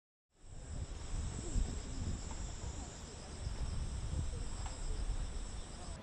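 Insects droning steadily on a high pitch, over gusty wind rumbling on the microphone.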